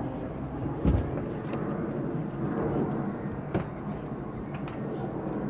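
Steady low outdoor background rumble, with a dull thump about a second in and a short knock a little past halfway.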